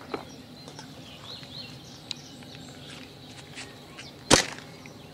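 A fishing slingshot released once, about four seconds in, with a single sharp snap of its rubber bands as it fires a groundbait ball.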